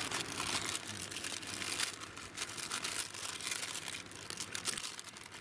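Plastic packaging crinkling and rustling in irregular bursts as it is handled and pulled open by hand.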